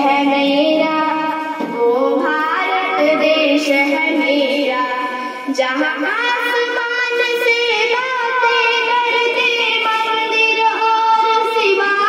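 A young girl singing a Hindi patriotic song solo, in long melodic phrases with held, wavering notes.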